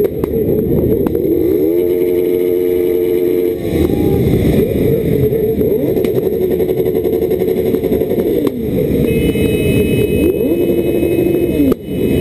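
Several sport motorcycle engines being revved hard in place, their pitch climbing and dropping over one another. One is held at high revs for a second or two about two seconds in, and again near the end.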